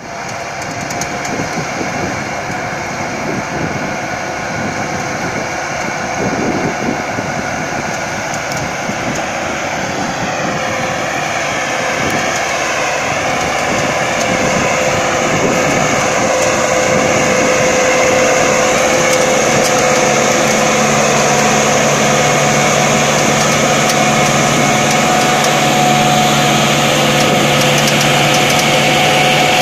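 Tractor diesel engine running under load as it pulls a cassava harvester through the soil, a steady engine sound that grows louder as the tractor draws close and a deeper hum joins in about two-thirds of the way through.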